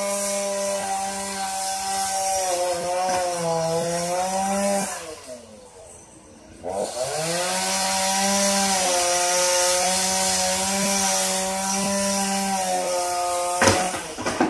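Chainsaw running at high speed under load, its pitch wavering as it cuts. Near the middle it drops back to idle for about a second and a half, then revs up again. Near the end the engine note stops and a few sharp cracks follow.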